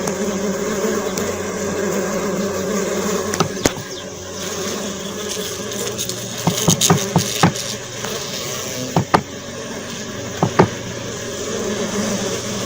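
A steady buzzing drone, like insects in flight, with scattered sharp clicks and taps from about three and a half seconds in.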